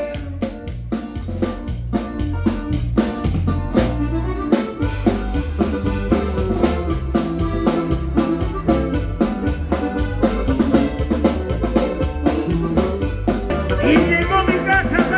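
Live dance band playing an instrumental passage: a drum kit keeps a steady beat over a moving bass line, with a melody line on top.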